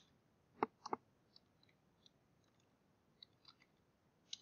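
Faint, uneven taps of computer keyboard keys as a word is typed slowly, with two louder taps about a second in.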